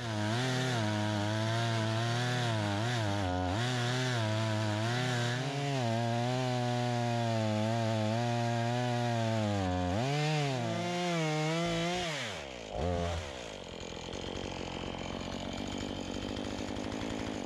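Chainsaw in a Gilbert mini mill, ripping a board lengthwise from a spruce log. The engine runs under load with its pitch wavering as it cuts. About 12 seconds in it winds down, blips once, and drops to a lower, quieter running.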